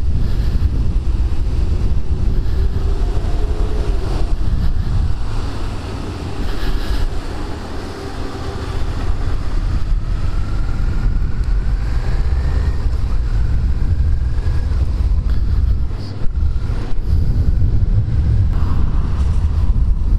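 Wind buffeting a helmet-mounted microphone on a moving motorcycle, over the low rumble of a Suzuki SVF650 Gladius V-twin engine and tyres on a wet road. The sound dips briefly about a third of the way in, and a faint rising tone follows near the middle.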